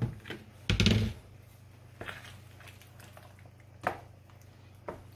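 Diced potatoes tipped from a plastic colander land in a skillet of thick cream sauce with one loud, dull thud about a second in. A few light knocks and scrapes follow as a utensil stirs them in the pan.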